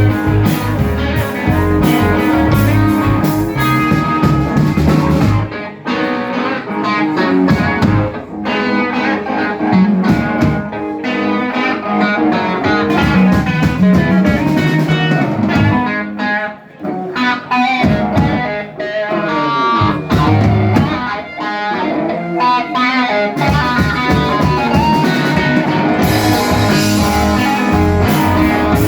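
Live rock-blues band playing an instrumental passage, electric guitar to the fore over bass and drums. The cymbal wash thins out for a long stretch in the middle and comes back in near the end.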